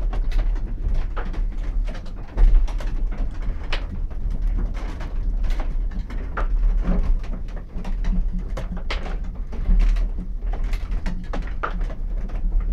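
The wooden gearing in the cap of a Dutch drainage windmill turning in the wind: the cogged brake wheel on the wind shaft runs with irregular knocks and creaks over a low rumble. The cogs are well greased with lard and the gearing runs calmly and smoothly.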